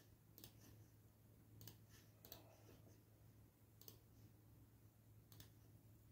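Faint computer mouse clicks, about five, spaced irregularly over near silence with a low steady hum.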